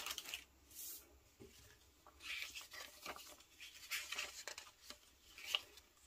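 Faint rustling of a folded paper instruction leaflet being picked up and unfolded, heard as several short crinkling rustles from about two seconds in.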